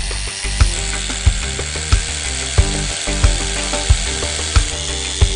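Background music with a steady beat, about three beats every two seconds, over held tones that change pitch in steps.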